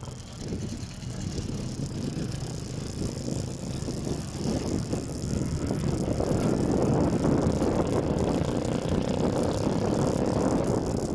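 Riding noise from a moving two-wheeler in traffic: wind buffeting the microphone over a low road and traffic rumble, growing louder about halfway through.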